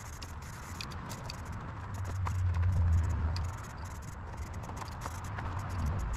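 Aerosol spray paint can in use on a metal frame: a light hiss with scattered small clicks, over a low rumble that swells about two seconds in and fades a second and a half later.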